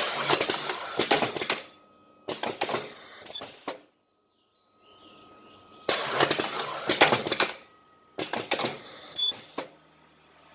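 Semi-automatic mask ear-loop welding machine cycling twice: a stretch of mechanical clattering, a shorter clatter, then a brief loud weld burst with a thin, very high whine, about six seconds per cycle.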